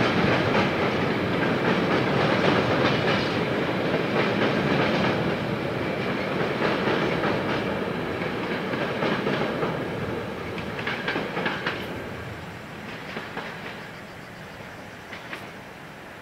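Freight train of empty flat wagons rolling away, its wheel rumble and clickety-clack on the rail joints fading steadily, with a few sharper clacks near the end.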